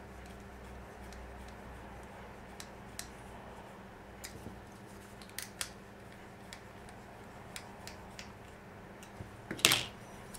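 Small scattered clicks of a hand screwdriver turning an M3x10 bolt into a 3D-printed plastic mount, with one louder clack near the end.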